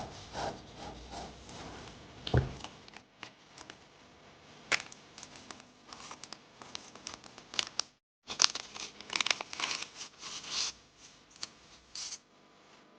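Paper being handled by hand: irregular crinkling, rustling and tearing with small taps, broken by a moment of complete silence about eight seconds in.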